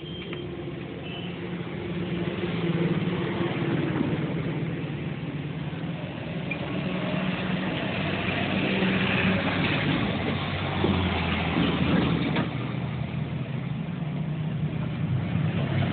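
An engine running steadily, slowly growing louder.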